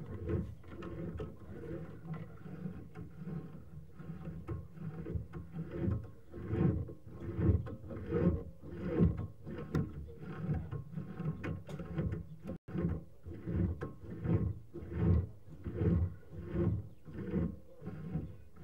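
Sewer inspection camera's push cable being fed by hand into the drain line: a run of uneven rubbing knocks, about one or two a second.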